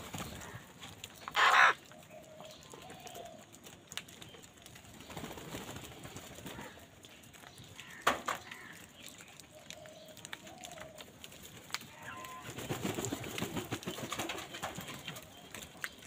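A flock of house crows calling while feeding: one loud, harsh caw a little over a second in, another sharp call at about eight seconds, and fainter short calls between. Around thirteen seconds there are a couple of seconds of rustling noise.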